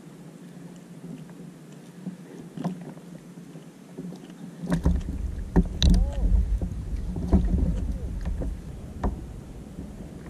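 Knocks and bumps on a plastic fishing kayak's deck and hull, with a low rumble, as a caught octopus is handled aboard; a short squeak rises and falls about six seconds in. The first few seconds hold only faint wind and water noise.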